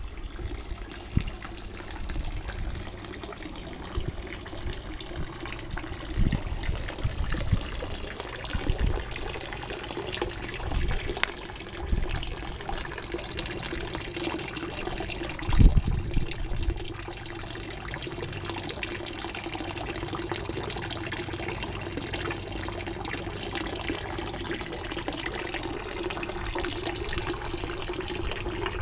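Stone dolphin fountain's jet of water splashing steadily into a garden pond. Occasional low thumps, the loudest about halfway through.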